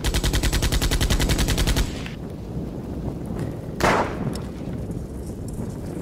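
An automatic weapon firing one burst of blanks lasting about two seconds, roughly eleven rounds a second, then a single sharp shot about two seconds later.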